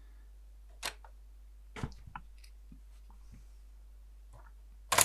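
Clicks and clunks of the Panasonic RX-FW20L radio cassette recorder's top-mounted keys being pressed by hand: a few single clicks in the first half, then a louder double clunk near the end.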